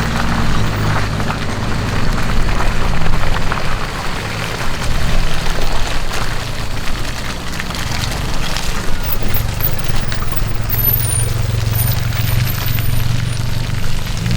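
A 4x4's engine running steadily at low speed, with irregular sharp knocks and crackles from the tyres and body over rough ground, thickest in the first few seconds.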